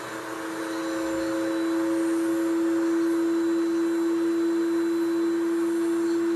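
Foredom SR motor turning a surgical handpiece with a 702 fissure bur, sectioning a typodont molar: a steady whine that grows louder about a second in, with a rough grinding hiss over it.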